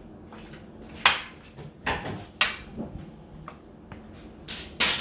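Metal spoon scraping and knocking against a plastic bowl and plastic plate as mashed potatoes are served: a series of sharp knocks and scrapes, the loudest about a second in and two more close together near the end.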